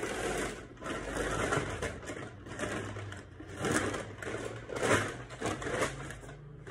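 Irregular bursts of rustling and crunching handling noise, loudest about four and five seconds in, over a low hum.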